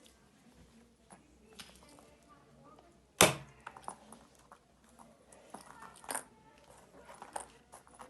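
Small plastic and paper items being handled, giving scattered light clicks and taps, with one sharp knock about three seconds in and another about six seconds in.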